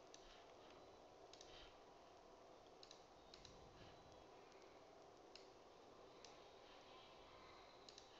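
Near silence: faint room hiss with scattered, irregular computer mouse clicks.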